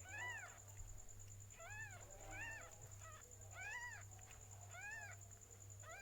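A cat mewing: about six short, high-pitched mews, each rising and then falling in pitch, roughly one a second. A faint steady hum and a thin high whine lie beneath.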